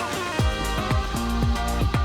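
Background electronic music with a steady beat of deep bass hits that drop in pitch, over held synth notes.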